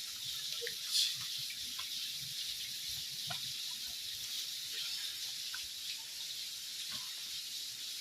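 Steady hiss of water falling and running over rocks at a small waterfall, with one short sharp click about a second in.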